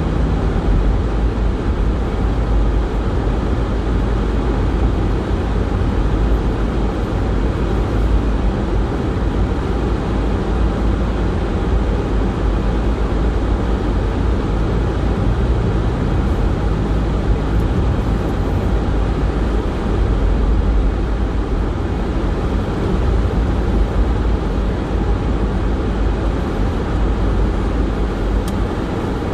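Car driving on a snow-covered road: a steady, loud low rumble of tyres and engine with no change in pace.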